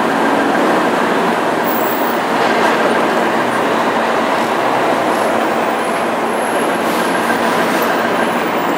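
Steady noise of city street traffic, with buses and cars passing close by and a faint steady engine hum underneath.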